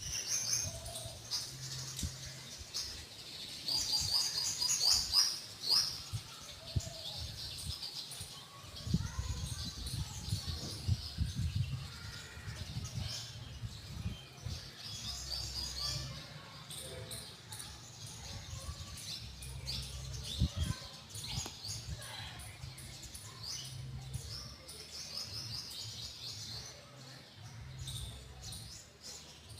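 Small birds chirping in quick high twitters that come and go, loudest about four to six seconds in, over a low rumbling background.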